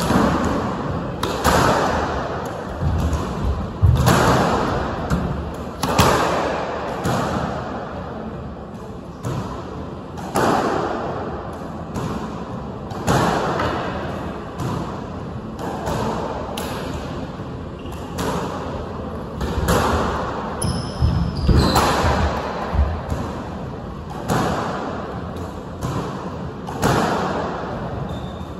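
Squash rally: the ball being struck by rackets and slapping off the court walls, a sharp smack every second or so, each ringing in the enclosed court.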